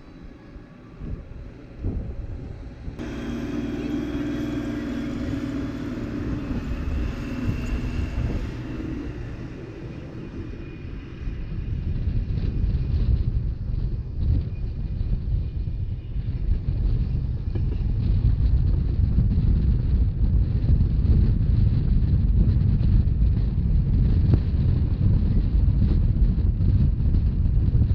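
Rhaetian Railway train running through snow: a humming tone at first, then a low rumble of running gear with wind on the microphone that grows louder as the train gathers speed.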